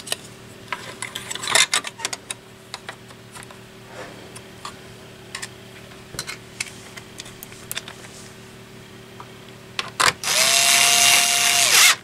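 Cordless electric screwdriver running for nearly two seconds near the end, driving a screw: a steady whine after a short rise in pitch as the motor spins up. Before it, light clicks and clatter of plastic and metal computer parts being handled.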